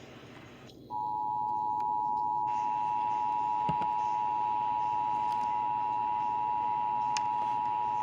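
Emergency Alert System two-tone attention signal (about 853 and 960 Hz sounding together), a steady piercing tone that starts about a second in after a brief quiet gap. It heralds an EAS message, here a test of the alert system.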